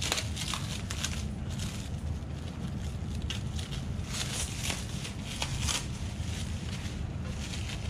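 Protective plastic film being peeled off an RC truck's chrome-plated bumper, crackling and crinkling in short irregular spurts, over a steady low hum.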